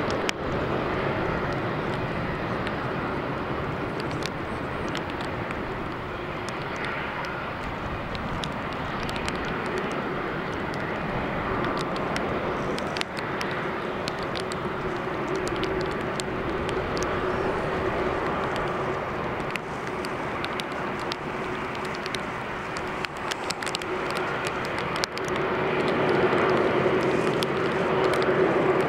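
Airbus A380-800's four Engine Alliance GP7200 turbofans at taxi power: a steady jet drone with a held tone, growing louder near the end. Scattered clicks of heavy rain run through it.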